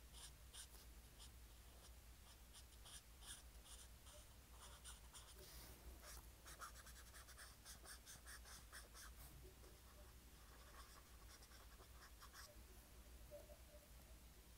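Faint scratching of a pen drawing on paper in quick short strokes, busiest in the middle.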